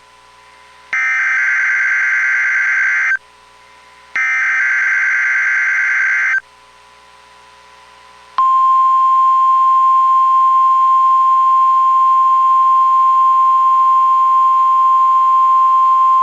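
NOAA Weather Radio transmitter audio for the weekly test of the warning alarm. The last two of the three harsh, screechy digital SAME header bursts come first, each about two seconds long with a second's gap between them. About a second and a half after the second burst, the steady single-pitch 1050 Hz warning alarm tone starts and holds.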